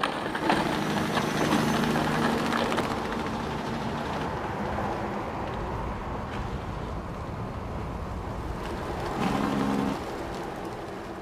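Truck engine running steadily, with a short steady tone about nine seconds in.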